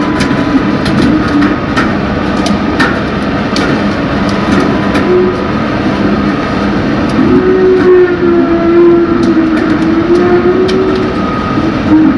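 Bucyrus 495HR electric rope shovel running loud and steady. A motor whine wavers up and down in pitch through the middle, over scattered sharp metallic clicks and clanks.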